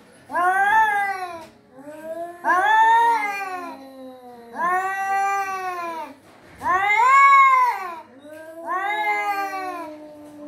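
Domestic cats yowling in a close nose-to-nose face-off: about five long drawn-out calls, each rising then falling in pitch, with a lower drawn-out moan between them.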